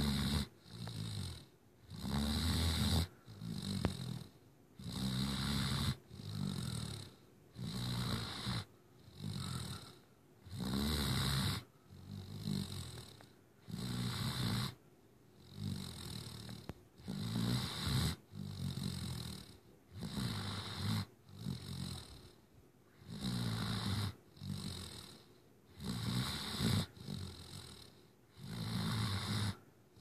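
Great Dane puppy snoring in its sleep, a steady rhythm of snores about one every second.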